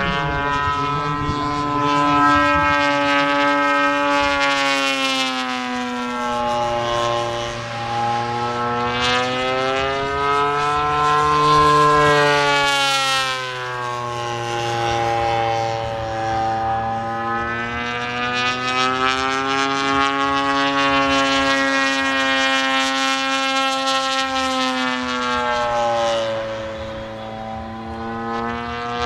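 Gee Bee RC model airplane's engine and propeller buzzing in flight, its pitch sliding slowly up and down several times as the plane flies past and turns.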